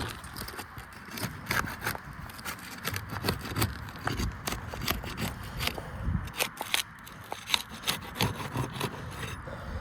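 Irregular scraping, rubbing and sharp clicks of hand tools working on asphalt roof shingles, as shingles are pried up and nails pulled for a shingle replacement.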